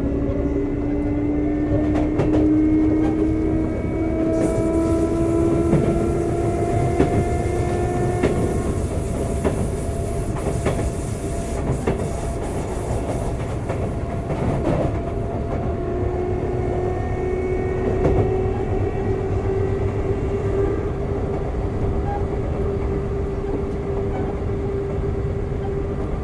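Sotetsu 9000 series electric train with Hitachi IGBT-VVVF traction control, heard from inside the car: a low motor whine rising slowly in pitch as the train accelerates, fading partway through while the wheels click over rail joints, then a steady hum from about two-thirds of the way in.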